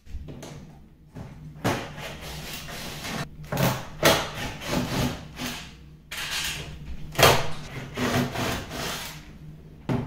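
Cordless drill-driver running in short bursts as it backs out screws from a dishwasher's door panel, mixed with knocks and rattles of the door and tool. A loud sharp knock comes about two-thirds of the way through.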